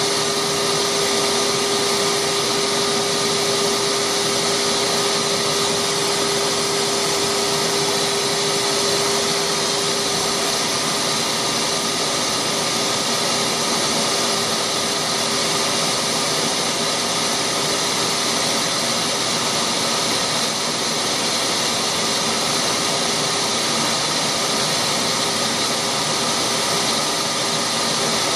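Delta wood lathe running steadily during pen turning: a constant whirring hiss with a steady hum tone, which weakens about ten seconds in.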